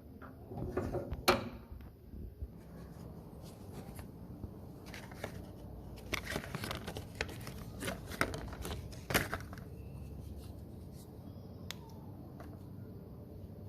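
Irregular clicks and knocks of objects being handled, with sharper knocks about a second in and about nine seconds in.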